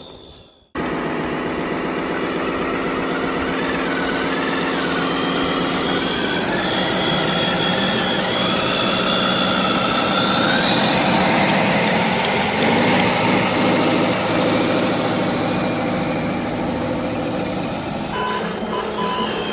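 Radio-controlled model vehicles' electric motors and gearing whining steadily, with one whine rising in pitch about ten seconds in, holding high, then cutting out near the end.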